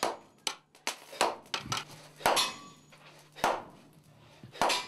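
Hand hammer striking red-hot iron on a stone anvil in a run of about eight irregularly spaced blows, some with a brief metallic ring.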